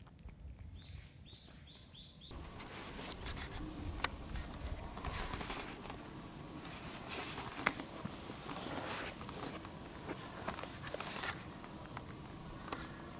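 Outdoor ambience: a bird gives a quick run of short rising chirps in the first two seconds, then the background grows louder, with scattered scuffs and footsteps.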